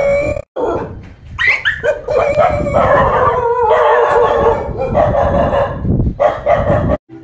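Dogs barking and howling in long drawn-out cries, some rising sharply in pitch, with a brief break about half a second in and an abrupt stop near the end.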